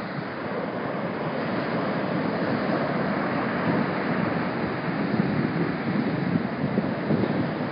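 Small ocean waves breaking and washing up on a sandy beach, a steady rushing of surf, with a light breeze rumbling on the microphone.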